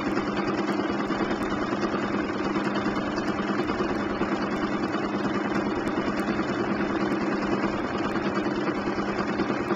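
Bernina 1260 sewing machine running steadily at speed, stitching continuously while free-motion quilting a quilt border, with a steady motor hum.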